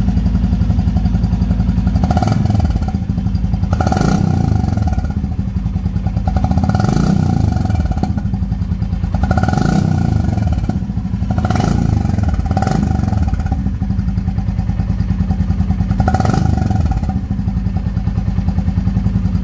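Royal Enfield Classic 350's single-cylinder engine running through an HK Indori aftermarket silencer, idling with a thumping exhaust beat and revved in about seven short throttle blips that drop back to idle.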